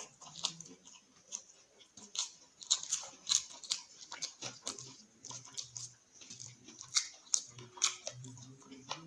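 Close-miked chewing of a mouthful of food: irregular wet smacks and mouth clicks, several a second, with some crunching. A few short low hums come in between.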